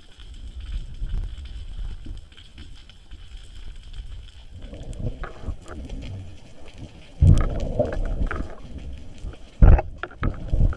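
Underwater water noise picked up by a submerged camera: a low rumble with scattered sharp clicks, and two louder gushing surges, one about seven seconds in lasting about a second and a shorter one near the end.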